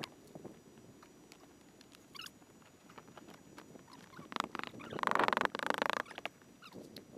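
Faint scratching and handling noises from work on a shooting target board, with a few light clicks and a louder rasping scrape lasting about a second, about five seconds in.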